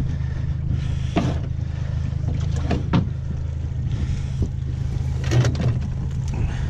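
A boat motor running steadily with a low, even hum, with a few knocks and clatters of fishing gear being handled on the boat's deck.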